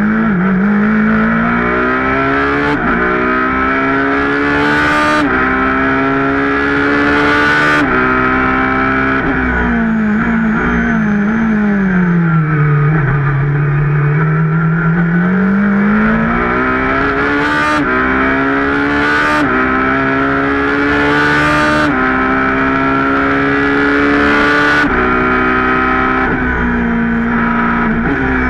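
Ferrari 458 GT2's V8 racing engine heard from inside the cockpit, accelerating hard through the gears. The pitch climbs and drops with a sharp crack at each upshift, three times at first. It then falls away under braking and climbs through four more upshifts.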